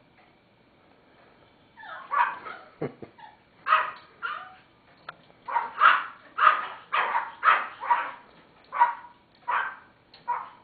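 Barking from teacup Pomeranians and a cockatoo that mimics their barks: a quick run of short, high barks beginning about two seconds in and coming one or two a second.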